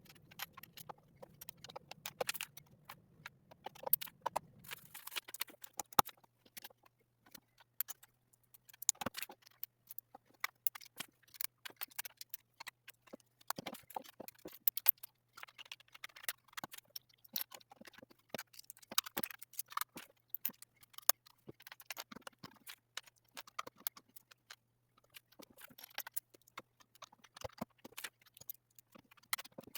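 Irregular clicking and rattling of small LEGO plastic bricks being sorted, snapped together and pulled apart by hand.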